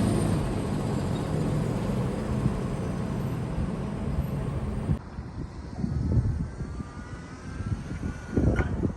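Steady vehicle rumble that cuts off abruptly about five seconds in, followed by quieter background noise with a few knocks.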